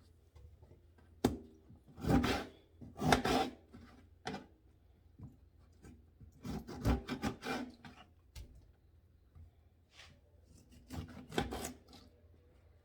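Knife cutting pineapple rind into small pieces on a cutting board, in a few short strokes with pauses between.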